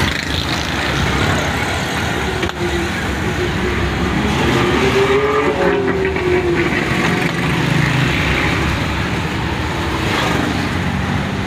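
Small car's engine and road noise heard from inside the cabin while driving along a city street. About halfway through, an engine note rises and then falls away.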